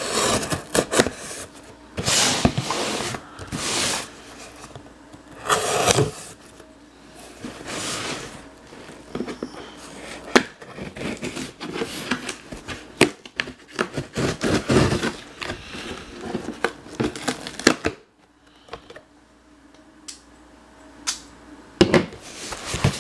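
Cardboard shipping box being handled and opened by hand: several scrapes and rubs of cardboard in the first half, and many sharp clicks and knocks, quieter for a few seconds near the end.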